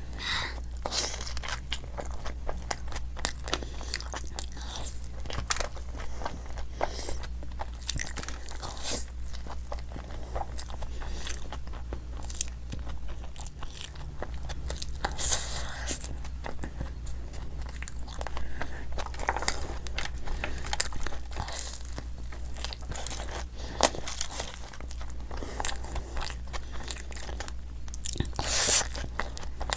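Close-miked mouth sounds of a person biting and chewing crunchy fried Indian snacks: irregular crisp crunches and wet chewing clicks, with a few louder bites around the middle and near the end. A faint steady low hum lies underneath.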